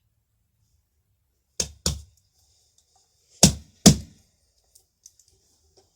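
Four sharp thumps in two close pairs, the second pair louder, as something is knocked or set down on a hard surface.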